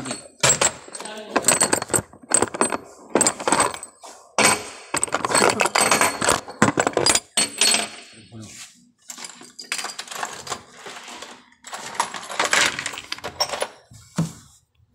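Small loose metal parts clinking and clattering irregularly as they are handled and dropped, with a faint metallic ring.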